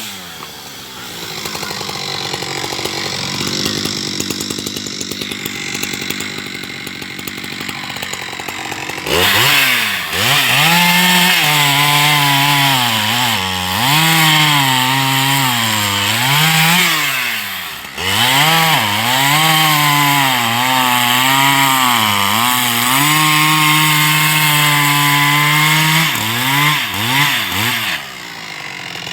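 Husqvarna 372 XP two-stroke chainsaw idling for about nine seconds, then opened up to full throttle. Its pitch repeatedly dips and recovers as it cuts with a carbide-tipped chain, and it drops back to idle near the end.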